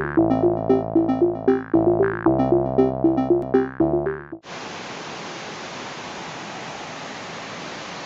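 Synthesizer intro music with a quick repeating figure, cutting off suddenly about four and a half seconds in, followed by a steady, even hiss.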